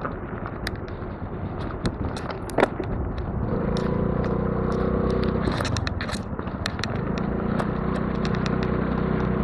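Honda Navi 110's small single-cylinder engine pulling away about three seconds in and running at low speed, easing off briefly near the middle, with tyres crackling over gravel.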